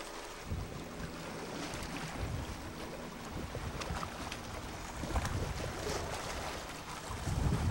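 Wind buffeting the camcorder microphone: a gusty, rumbling noise that gets louder near the end, with a few faint clicks.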